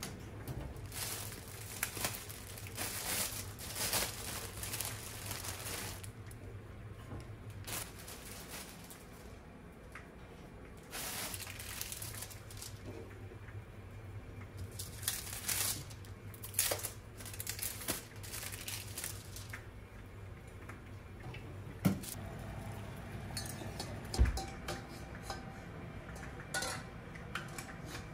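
Kitchen handling sounds: a toaster oven door being opened and bread laid on its rack, then a steel saucepan and utensils clinking on a gas stove, with two sharp knocks near the end.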